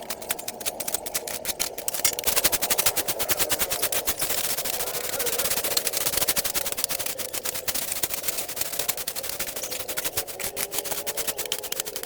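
Rapid, continuous mechanical clatter, many ticks a second, over a steady, slightly wavering hum.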